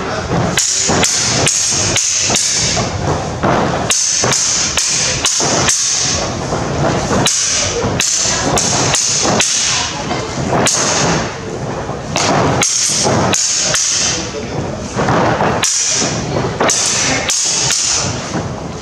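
Two fencers sparring with sabres: an irregular, rapid run of blade clashes mixed with stamping footsteps on a wooden floor.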